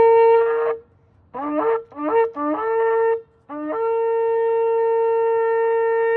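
Shofar (ram's horn) blown: one blast, then three shorter broken notes, then a long held note that ends with a quick upward flip. Each note starts with a rising scoop into its pitch.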